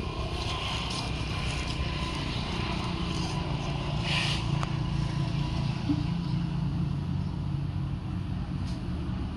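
Steady low rumble of a running motor vehicle engine, with a brief hiss about four seconds in.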